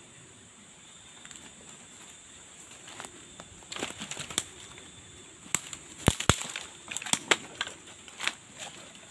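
Dry bamboo leaves and twigs crackling and snapping underfoot, starting about three seconds in, with a cluster of sharp, louder snaps in the middle.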